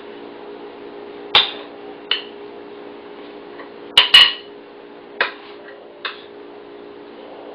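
A spoon knocking and clattering against the bowl and glass baking dish while scooping and shaking off a thick cream cheese filling, about six sharp knocks with the loudest pair about four seconds in. A steady low hum runs underneath.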